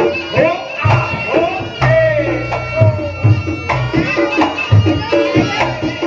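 Reog Ponorogo gamelan accompaniment: steady drum strokes and low booming beats under a melody line that bends and swoops in pitch.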